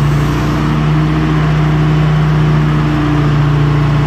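Steady mechanical hum from the overhead crane running as it carries the suspended rollback bed, one unbroken low tone at an even level.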